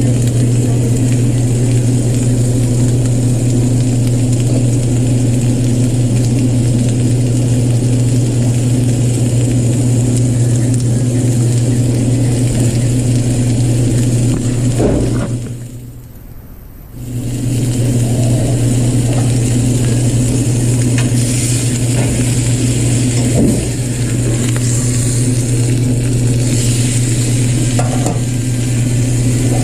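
Ribeye steak sizzling in a ridged cast-iron grill pan over a gas burner, over a steady low hum. Everything drops away for about two seconds a little past the middle.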